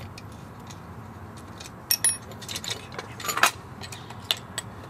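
Small metal clicks and clinks as a bolt on a bike-seat mounting bar's clamp bracket is undone with an Allen key and the bracket is pulled open. The clinks are scattered, with a pair at about two seconds and the loudest a little after three seconds.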